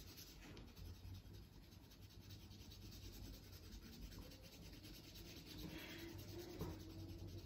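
Graphite pencil scratching faintly across toothy printmaking paper as it shades, a little louder near the end.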